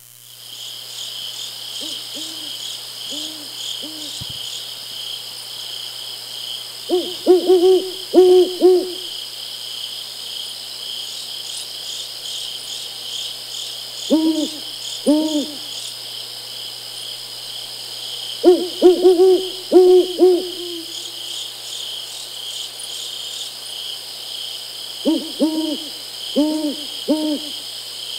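An owl hooting in short series of several rising-and-falling hoots, five bouts a few seconds apart, over a steady chorus of crickets or other insects.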